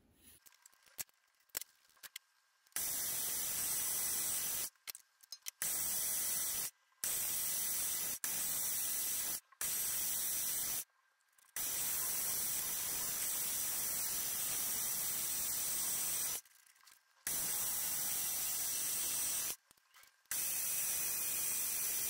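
Small benchtop metal lathe running with a steady, hissing whir while facing a brass workpiece; the sound cuts off abruptly several times and resumes. A few light clicks near the start, as the tool post is tightened with a wrench.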